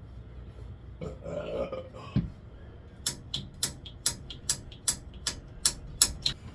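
A short grunt-like sound and a single thump, then a quick, even run of sharp clicks, about four a second, from fitting a brake cable and housing to a bicycle.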